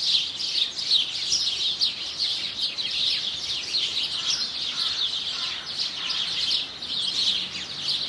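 Many small songbirds chirping and twittering together in a dense, unbroken chorus of quick high notes.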